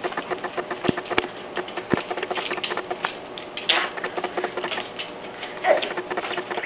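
A baby eating: rapid, irregular small clicks and smacking ticks, several a second.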